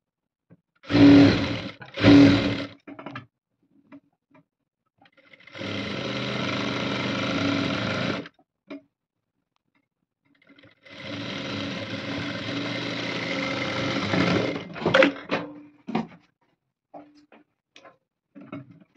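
Jack industrial lockstitch sewing machine stitching through layered fabric. It starts with two short, loud bursts, then runs steadily for about three seconds, stops, and runs again for about four seconds, with a few sharp clicks as it stops.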